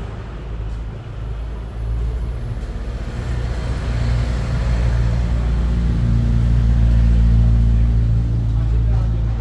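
Motor vehicle engine running close by: a deep steady rumble that grows louder to a peak about seven seconds in, then eases slightly.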